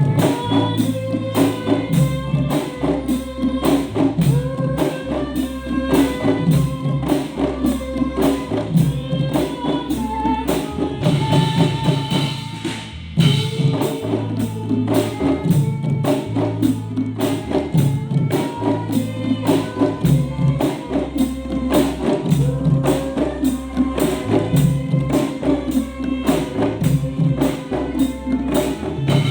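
Music played loud through a PA sound system during a sound check: a steady beat with drums and tambourine over a strong bass line, with a melody on top.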